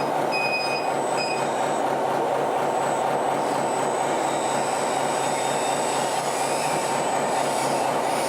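Steady mechanical whirring and rumbling of radio-controlled model trucks and machinery running, with a faint high whine throughout.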